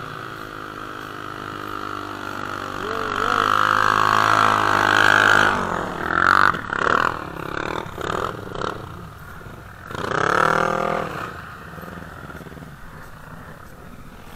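Sport quad (ATV) engines: an engine revs up steadily over the first five seconds, then gives a run of short throttle blips, and a strong surge of revving rises and falls about ten seconds in.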